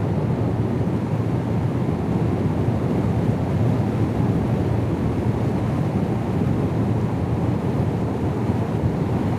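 Steady wind and road noise of a motorcycle ride at highway speed, a constant low rush with no breaks.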